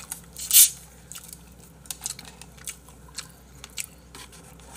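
A plastic bottle of fizzy drink twisted open, giving one short, loud hiss about half a second in. Throughout, chewing and eating with small wet mouth clicks.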